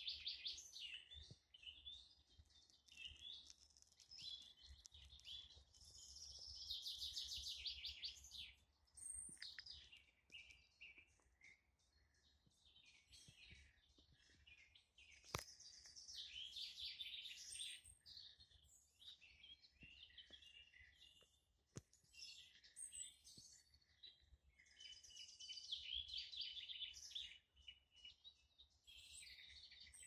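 Songbirds singing in summer woodland: short, high, trilled song phrases repeated every few seconds, with other birds chirping between them. A single sharp click sounds about halfway through.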